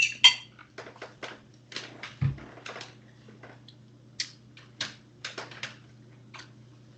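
Cutlery clinking and tapping against a dish during a meal: a string of short, sharp clicks, with one low thump about two seconds in.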